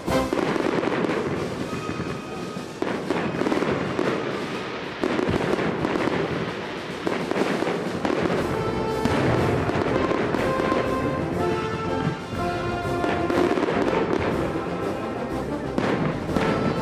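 Aerial firework shells bursting in a rapid, dense series of sharp bangs, with music playing alongside.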